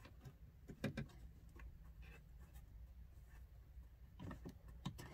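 Faint clicks and light plastic knocks from hands handling and fitting a blend door actuator under a dashboard, the sharpest about a second in, over a low steady hum.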